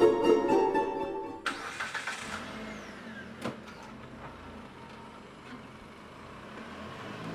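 Plucked-string music stops abruptly about a second and a half in, and a car engine starts. It then runs quietly at idle, with one sharp click in between.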